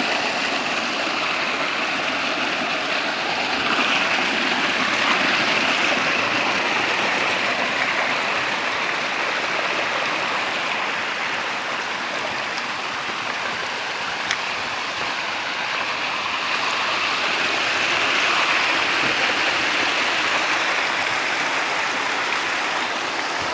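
Running water rushing steadily, a continuous hiss that swells a little louder about four seconds in and again near eighteen seconds.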